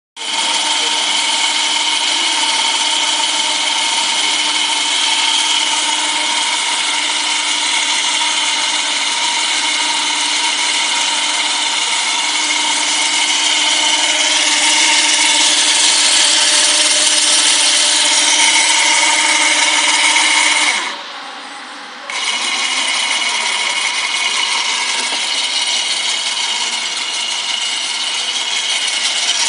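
Electric winch motor on a small truck-mounted crane running steadily while hoisting a load of about 60 kg, a loud even whine. It stops for about a second roughly two-thirds of the way through, then runs again with a slightly changed tone.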